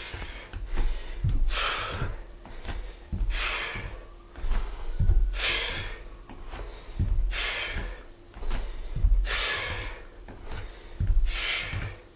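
Hard breathing of a man mid-workout, with a loud exhale about every two seconds. Dull thuds of bare feet landing on a wooden floor come between the breaths.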